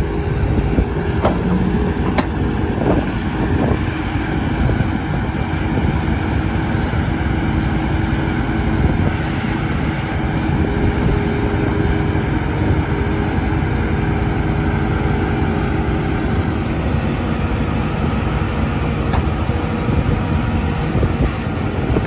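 JCB 3CX backhoe loader's four-cylinder diesel engine running steadily under load as the backhoe arm digs into sandy soil. A few sharp knocks come in the first three seconds.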